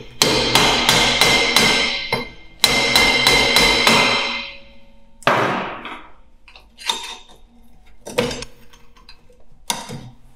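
Hammer striking a stuck rear brake drum in two quick runs of blows, about three or four a second, the drum ringing under them, to shake it loose where the brake shoes catch on a ridge inside the drum. A few single knocks follow as the drum is worked loose.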